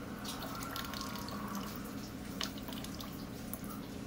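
Small, irregular drips and splashes of water in a glass bowl as a cat drinks from it, over a steady low hum.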